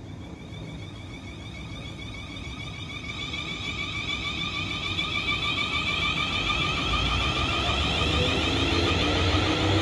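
A train approaching, growing steadily louder: a high, slightly wavering whine of several tones builds throughout, and a low rumble joins in from about seven seconds in.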